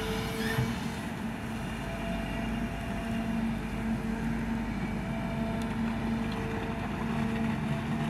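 Heavy diesel earthmoving machinery running steadily under load, with a continuous engine rumble and a humming tone that fades in and out every second or two.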